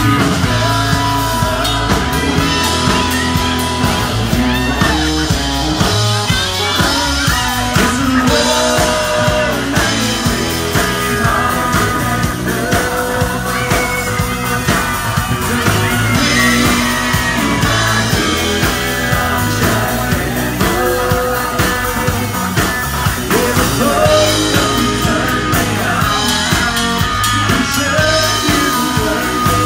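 Live rock band playing loudly: electric guitars, bass guitar and a drum kit, with singing over the top.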